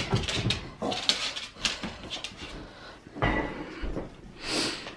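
A pit bull moving about and mouthing a toy: scattered clicks and knocks of claws and toy on a wooden floor and dog bed, a dull thud about three seconds in, and a short breathy huff from the dog near the end.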